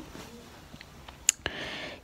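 A quiet pause in a person's talking: a small mouth click a little past halfway, then a soft, short breath in.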